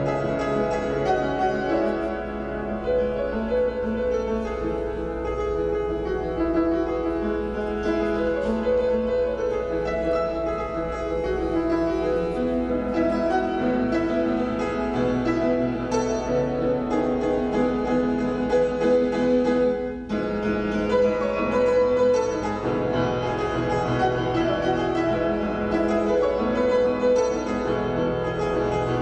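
Upright piano played solo, a continuous run of notes in a steady flow, with a momentary break about twenty seconds in.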